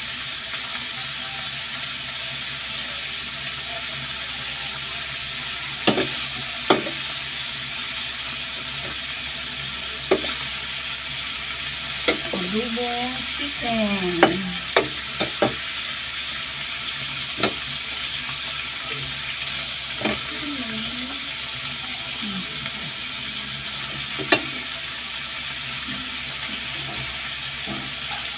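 Chicken pieces sizzling as they fry in a pan, a steady hiss, with the spatula knocking and scraping against the pan every few seconds as the chicken is stirred.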